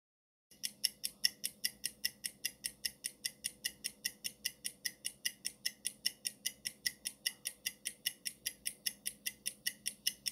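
Countdown-timer clock-ticking sound effect: fast, even ticks about five a second, starting about half a second in, marking the seconds left to answer.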